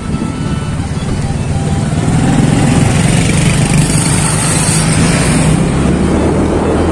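Motorcycle engine running while riding along a road, with its note steadier and louder from about two seconds in as it picks up speed on the main road, mixed with wind on the microphone.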